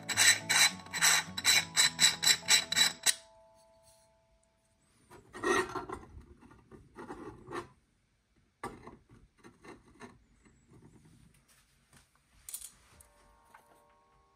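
Threads of a CNC-machined duralumin coffee canister being screwed together by hand: a fast, even rasping of metal threads, about four strokes a second, that stops about three seconds in. Quieter knocks and clicks of the metal canisters being handled and set down follow.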